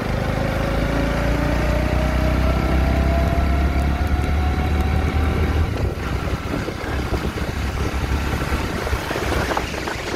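Motorcycle engine running at road speed under heavy wind noise, its note climbing steadily through the first half as the bike gathers speed.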